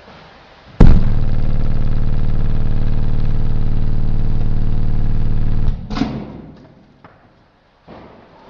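Orion HCCA car subwoofer fed directly with 120 V mains AC, blaring a loud, steady low buzz at the mains frequency for about five seconds. It cuts off suddenly, followed by a short crackle and a few faint clicks.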